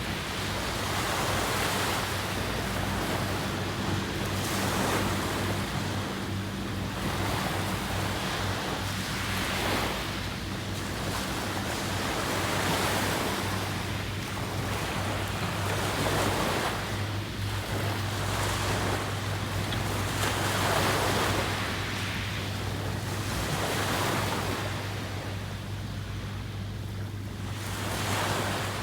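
Ocean waves washing onto the shore, the rush swelling and falling back every few seconds, with a steady low hum underneath.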